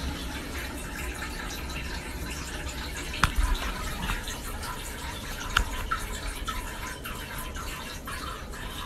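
A steady trickle of liquid into toilet-bowl water: a cat urinating while crouched on the toilet seat. A few faint clicks sound through it, one sharper about three seconds in.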